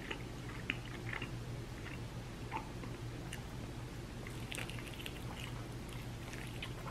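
Close-miked chewing and wet mouth sounds of someone eating hot chicken wings: scattered soft smacks and clicks, over a steady low hum.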